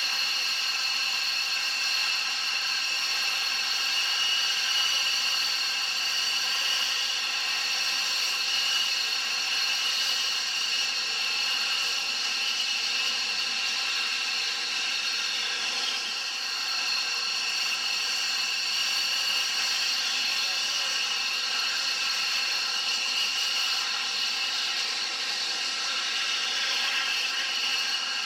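Steady mechanical whine with several high tones held level throughout, without change in pitch or loudness.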